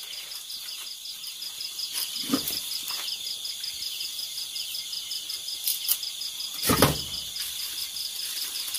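A steady, pulsing chorus of night insects such as crickets, with a few light knocks and scrapes from a spoon and hands working food in an aluminium bowl. The loudest knock comes about seven seconds in.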